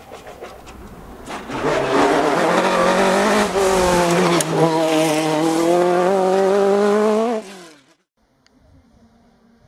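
Ralt RT36 single-seater race car's engine at high revs under hard acceleration, its pitch climbing and dipping briefly near the middle as it changes gear. The engine sound cuts off abruptly near the end, leaving only a faint background.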